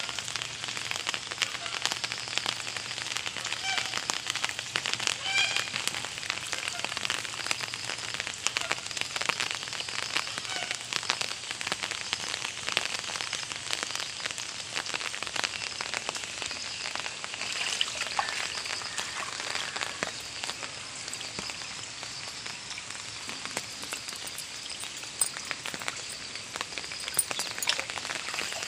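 Rain falling on standing water and wet ground: a steady hiss dense with small drop clicks.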